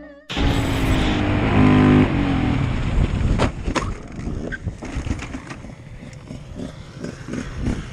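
Motorcycle engine running under heavy wind rush on a helmet-mounted camera, its note dropping about two seconds in. A couple of sharp clicks follow, then uneven low thumping.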